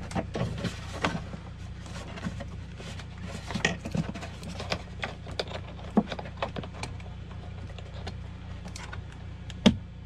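Hands working the HVAC blower motor's wiring plug up behind a semi truck's dash panel: rustling of wires and plastic with scattered small clicks and knocks. A sharp click near the end as the connector snaps into place. A steady low hum runs underneath.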